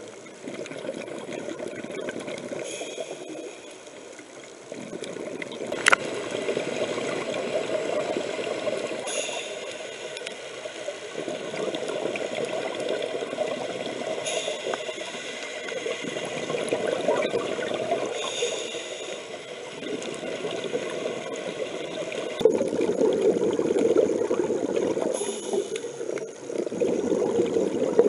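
Scuba diver's breathing heard underwater: hissing regulator inhalations alternating with bubbly exhalations, swelling and fading in slow cycles of several seconds. One sharp click about six seconds in.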